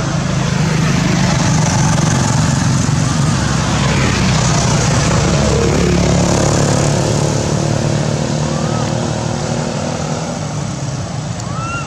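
A motor vehicle running on the road, its engine rumble swelling in the first few seconds and fading after about seven seconds as it passes. A few short high chirps sound over it.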